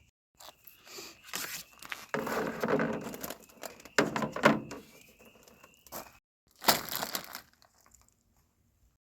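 Bursts of crinkling, crunching handling noise, the loudest a little after two seconds and around four seconds in, over crickets chirping steadily.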